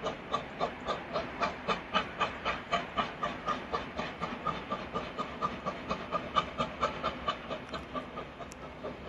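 FS class 740 steam locomotive working under steam as it approaches, its exhaust chuffing in an even, rapid beat of about three to four chuffs a second over a steady hiss.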